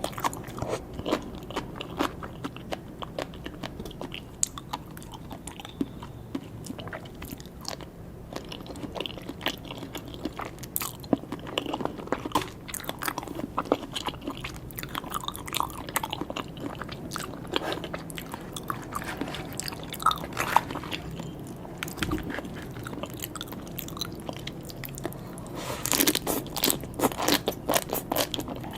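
Close-miked eating of sea grapes and salmon sashimi: chewing with many small crunchy bites and sharp little pops and clicks, densest in a burst near the end.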